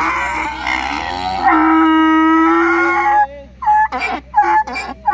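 A donkey braying close by. It starts rough and noisy, settles into one long steady note, and cuts off about three seconds in.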